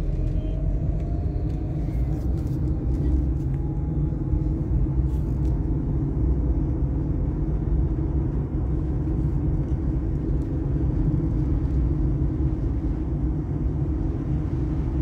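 A motor vehicle driving: a steady low rumble, with a faint whine that rises in pitch over the first few seconds as it gathers speed.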